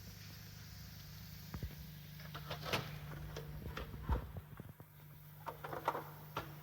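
Weiler Dominator mixer grinder running with a steady low hum that grows stronger about two and a half seconds in, with irregular knocks and clicks over it.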